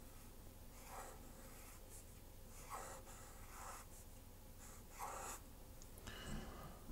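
Fine-tipped pen drawing on paper: faint scratching in about half a dozen short strokes, each under a second.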